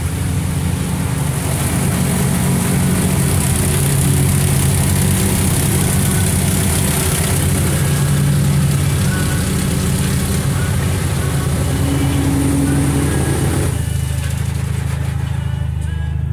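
Car-wash water spray hitting the car's windshield and body, heard from inside the cabin as a loud, steady hiss over a low rumble. The spray falls away about 14 seconds in.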